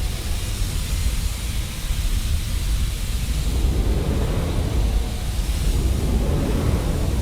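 Flamethrower sound effect: a continuous fire blast, a deep steady rumble with the hiss of pressurized gas over it.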